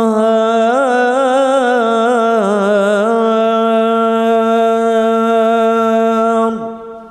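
A male Quran reciter's solo voice chanting the closing salawat in the melodic recitation style. It runs through a wavering, ornamented melisma for about three seconds, then holds one long steady note that slides down and fades out near the end.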